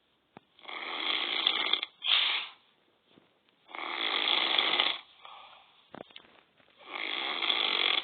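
A man snoring: three long, loud, rasping snores about three seconds apart, with shorter breaths out between them.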